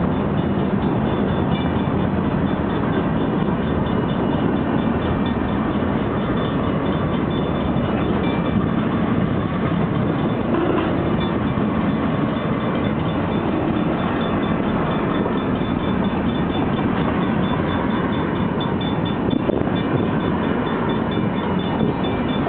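Freight train rolling past: a steady, loud rumble of cars on the rails, with a faint bell ringing steadily over it.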